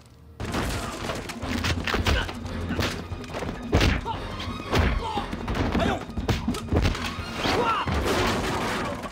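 Film fight sound effects: a rapid, irregular run of punch and kick impacts, with short vocal outbursts from the fighters, over score music.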